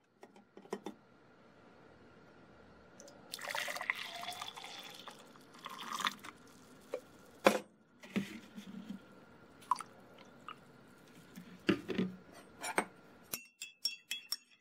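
Coffee poured into a tall ceramic mug in splashing pours, with knocks and clunks of the pot and mug in between. Near the end a metal spoon stirs it, clinking rapidly against the mug.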